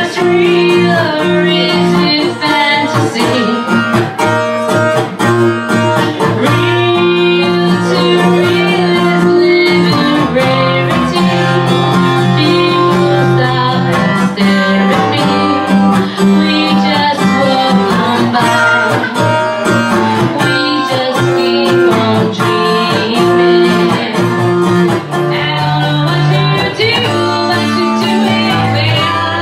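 Live amplified music: a woman singing lead over an electric guitar, with held low bass notes underneath.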